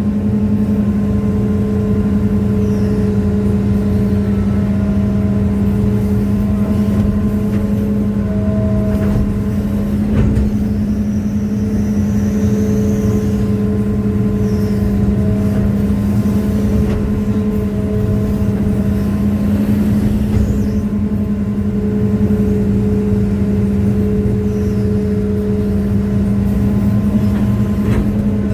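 Hitachi excavator's diesel engine running steadily with a constant deep hum, fainter higher tones coming and going over it, and a single knock about ten seconds in.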